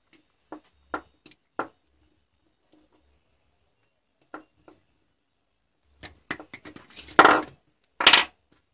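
Cylindrical lithium-ion cells and a soldering iron being handled and set down on a workbench: scattered light clicks and knocks. Near the end come a quick run of clicks and two louder, longer rattles.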